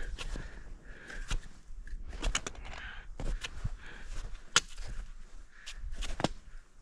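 A climber's footsteps on the mountain: irregular sharp clicks and crunches, sometimes several close together, over a low rumble.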